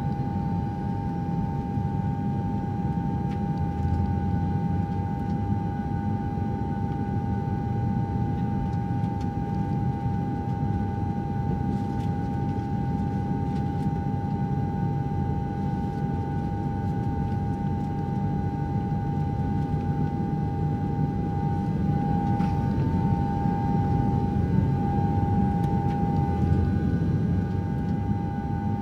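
Road and engine noise inside a moving car's cabin: a steady low rumble. Over it runs a steady high-pitched whine of two close tones, wavering slightly near the end.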